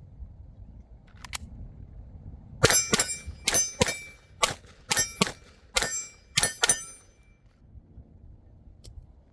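A Glock 45 9mm pistol fired in a fast string of about ten shots over some four seconds, many in quick pairs. Each shot is followed by a short metallic ring.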